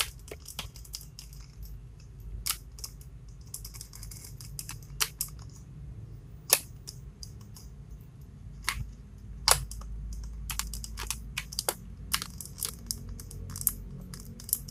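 Irregular sharp plastic clicks and taps from an electric pepper grinder being handled, its clear grinding chamber twisted in the hand. The motor does not run, which the owner puts down to weak batteries.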